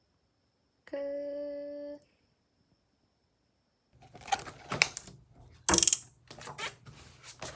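A short steady electronic tone lasting about a second, then, after a pause, irregular sharp clicks and clacks with one louder clatter a little past the middle.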